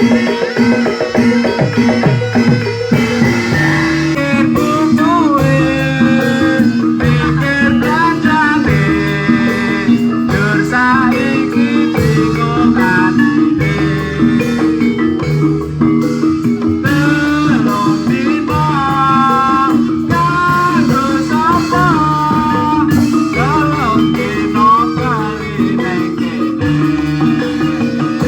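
Loud live barongan accompaniment music in the Javanese gamelan style. Repeated pitched notes on tuned percussion keep up a steady pattern, under a melody line that bends and ornaments its notes.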